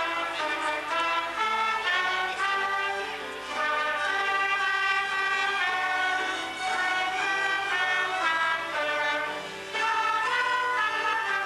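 Orchestral music playing a melody, with strings and brass.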